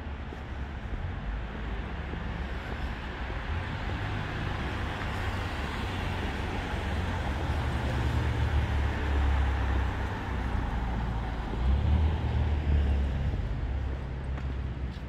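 Street traffic: vehicles passing, a continuous low rumble with tyre hiss that swells through the middle and peaks again about twelve seconds in.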